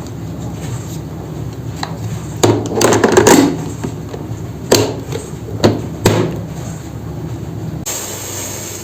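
Hard household objects being handled and set down, knocking and clattering: a burst of clatter about two and a half seconds in, then three single knocks.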